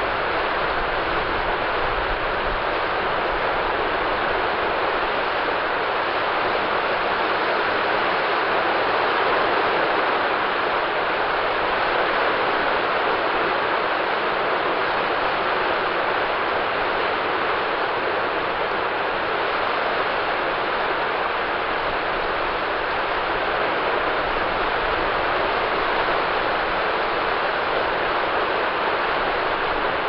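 Surf on a shallow sandy beach: low waves breaking and washing up the sand, heard as a steady, even rush of water with no single breaker standing out.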